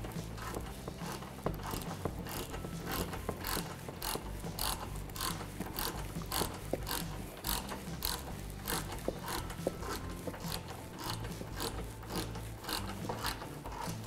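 Hand ratchet clicking as it is swung back and forth to tighten the bumper's Torx bolts: a steady run of sharp clicks, two or three a second.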